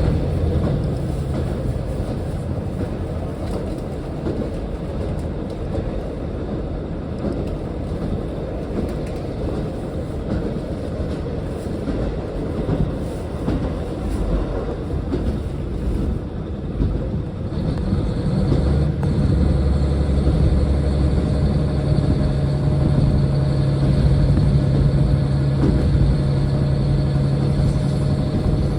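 Diesel railcar running along the track, with a steady rumble and some clickety-clack from the rails. About two-thirds of the way through, a low steady engine drone comes in and the sound grows louder as the diesel engine works harder.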